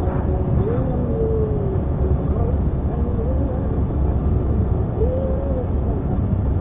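Steady road and engine noise inside a moving car, mostly a low rumble. A faint voice rises and falls in pitch over it several times.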